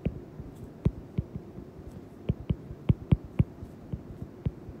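Stylus tip tapping and clicking on a tablet's glass screen while writing: about a dozen short, sharp clicks at an uneven pace, over a faint steady background.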